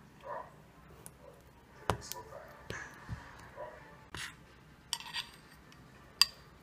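Knife and metal spoon scraping and tapping against an aluminium ring pan and a small glass bowl as a frozen cream dessert is cut and scooped out: scattered light clinks and knocks, the sharpest one near the end.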